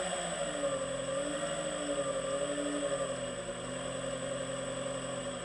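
Three-phase AC buffing motor run slowly by a variable frequency drive, giving a steady hum and whine that wavers gently in pitch.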